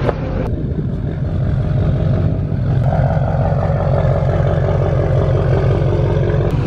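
Chevrolet Silverado's Duramax turbodiesel engine running steadily, with a fast low pulsing from the exhaust.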